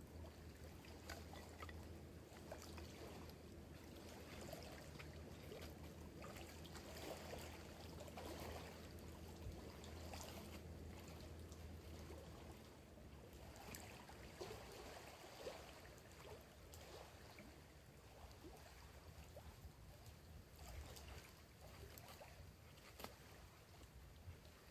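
Faint campfire crackling, a few small scattered pops, over soft lapping of lake water.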